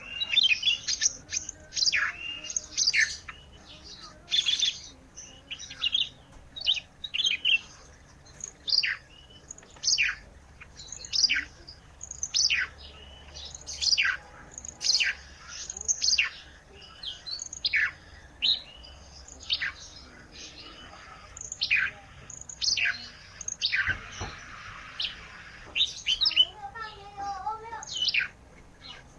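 A songbird known to Indonesian bird keepers as 'ranting' singing vigorously: loud, clear notes that sweep downward in pitch, repeated about once a second, mixed with quick short chirps.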